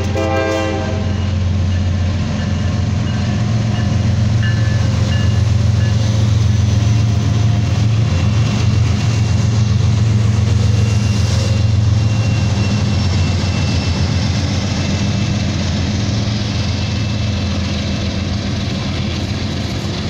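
Norfolk Southern freight train passing close by, led by GE Evolution-series diesel locomotives. The tail of a horn blast cuts off about a second in. Then the engines' steady low drone and the noise of wheels on rail build and hold as the locomotives and double-stack container cars roll past.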